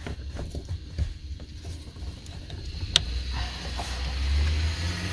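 Small clicking and handling sounds from plastic parts being worked by hand, with one sharp click about three seconds in, typical of an electrical connector being pushed on and latched. A low rumble builds near the end.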